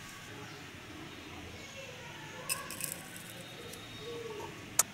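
Quiet kitchen handling noise as drink powder is spooned into a cup: a few light clicks about two and a half seconds in and one sharp tap near the end, like a spoon or scoop knocking the cup.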